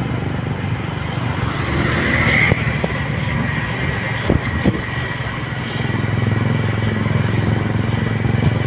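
Motorcycle engine running steadily while riding, with road and wind noise, and two brief knocks about four and a half seconds in.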